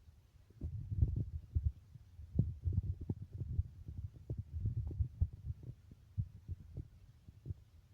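Irregular low rumbling thumps starting about half a second in, with no steady rhythm.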